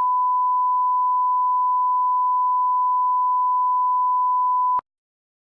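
Test tone of a TV colour-bars 'technical difficulties' screen: one steady beep at a single pitch, cutting off suddenly near the end.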